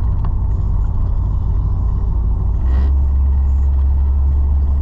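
1981 Chevrolet C10 pickup driving, heard from inside the cab: a steady low engine and road drone that grows slightly louder about two and a half seconds in.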